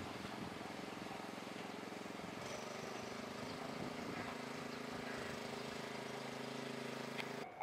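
A steady motor hum holding a constant low pitch, which shifts to a slightly different steady pitch about two and a half seconds in. It cuts off abruptly near the end.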